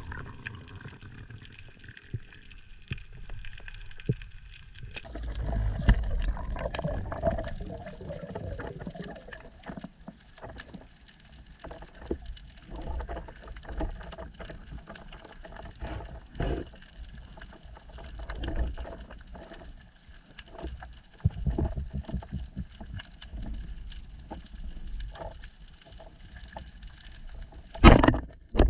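Muffled underwater sound heard through an action camera's waterproof housing as a freediver swims: sloshing, gurgling water with scattered clicks and knocks, and a loud rush of water near the end.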